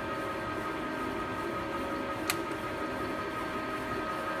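Nardini 1640 engine lathe running under power with its chuck spinning: a steady machine hum with an even whine, and a single sharp click about halfway through.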